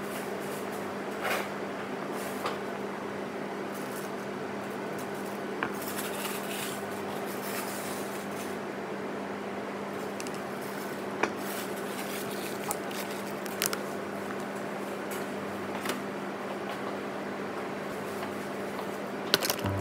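Steady background hum under a handful of light, sharp clicks and clinks of a small spoon against a plastic tub of fish roe.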